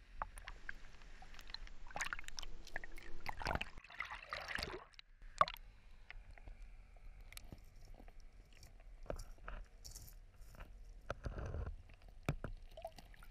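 Muffled water sounds picked up underwater: sloshing and gurgling with scattered small clicks and knocks, and a louder rush of water noise about four seconds in.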